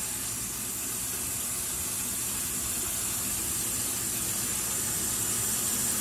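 Kitchen faucet running a steady stream of water into a stainless steel sink, a constant rushing splash that grows slightly louder.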